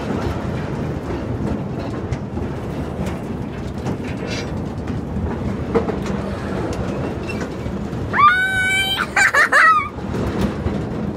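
Tilt-A-Whirl ride car rumbling and rattling steadily as it spins around the platform. About eight seconds in, a rider lets out a high-pitched shriek lasting under two seconds, wavering at the end.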